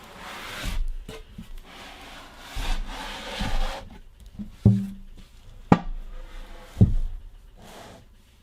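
Cardboard packaging being pulled open and scraped, rubbing and scraping in stretches, with a few sharp knocks in the second half.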